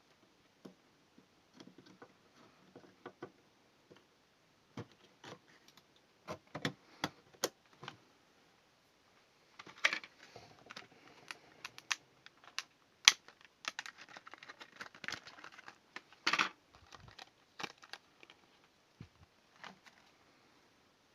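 Irregular sharp plastic clicks and taps with light rustling: RAM modules being handled and pressed into a motherboard's memory slots, their latches clicking.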